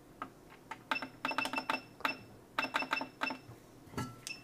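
Two quick runs of small, sharp clicks, each click leaving a faint metallic ring: one about a second in, the other near three seconds, with a few single clicks around them.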